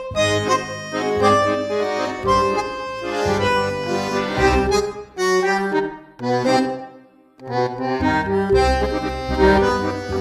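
Instrumental background music: held melody notes over a bass line, breaking off briefly about seven seconds in before starting again.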